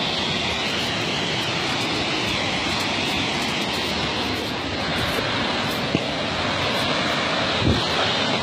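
Steady rushing noise, with a brief knock about six seconds in and another near the end.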